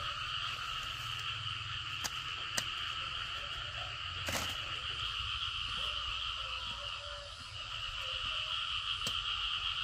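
A steady chorus of calling frogs runs throughout. A few short sharp snaps and a rustle about four seconds in come from corn stalks being cut with a long knife and gathered.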